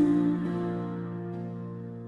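Instrumental passage of a soft Christmas ballad: sustained chords holding and slowly fading between sung lines.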